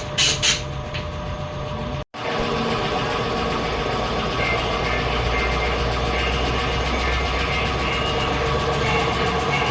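Motor-driven machinery running steadily: a constant hum with a higher whine that comes and goes. The sound breaks off briefly about two seconds in and picks up again.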